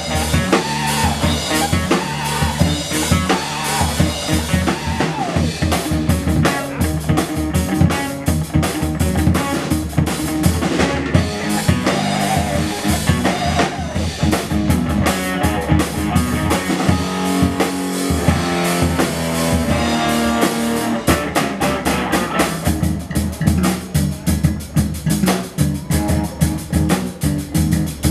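Live rock band playing: electric bass, a semi-hollow electric guitar through an amplifier, and a Ludwig drum kit with busy drumming and cymbals.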